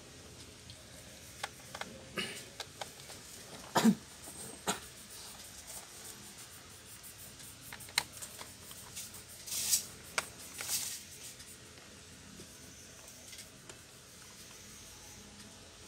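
Scattered small clicks, taps and scrapes of a screwdriver working on a laptop's plastic and metal parts during disassembly. The loudest is a pair of knocks about four seconds in, and there are two short scrapes around ten and eleven seconds.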